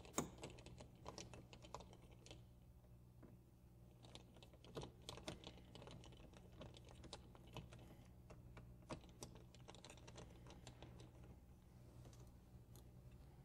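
Faint, irregular clicking and ticking of a Phillips screwdriver working screws out of a metal contactor mounting plate, in several runs that thin out near the end, over a low steady hum.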